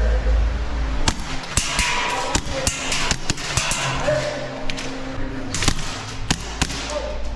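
Sharp, irregularly spaced cracks and snaps of airsoft guns firing and BBs striking, starting about a second in, over background music.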